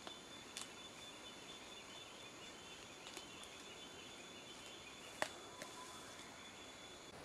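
Faint forest background with a steady high-pitched whine and a few sharp clicks or snaps, the loudest about five seconds in.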